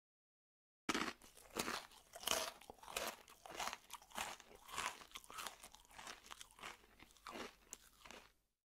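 Close crunching and chewing noises, irregular crackly strokes a couple of times a second. They start about a second in and stop shortly before the end.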